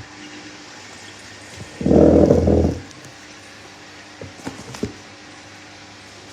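Hoover Dynamic Next 7kg washing machine starting on a spin programme: a steady low hum with a faint steady tone, a loud burst lasting about a second about two seconds in, and a few light clicks.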